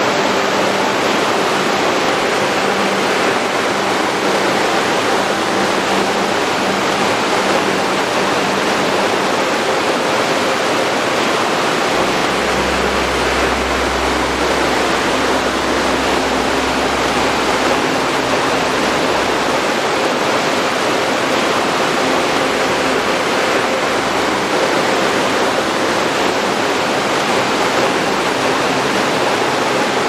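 Waterfall rushing steadily as it plunges onto rock and churns into white water. A deeper low rumble joins for several seconds about twelve seconds in.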